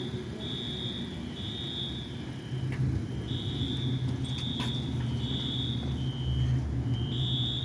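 A station fire alarm sounds as a repeating high electronic tone in pulses of about two-thirds of a second, stepping between two pitches, with short gaps. A steady low rumble runs under it and grows louder about three seconds in.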